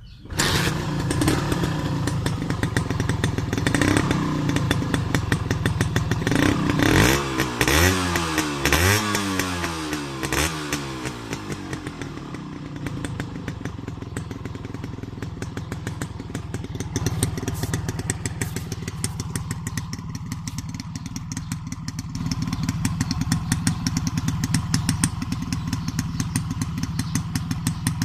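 Honda H100S two-stroke single-cylinder motorcycle engine running with its CDI ignition under test: revved several times in the first half, the pitch rising and falling, then settling to a steadier idle, picking up a little again near the end.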